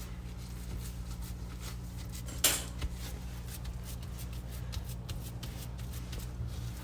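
Hands shaping raw ground-meat meatloaf mix in a grill basket: soft, quick patting and squishing, with one louder hit about two and a half seconds in. A steady low hum runs underneath.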